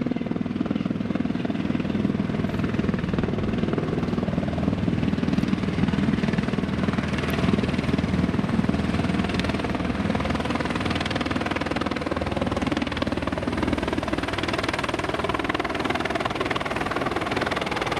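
Helicopter running steadily as it comes in to land: a constant, dense rotor and engine sound with a fast chop and a faint steady whine above it.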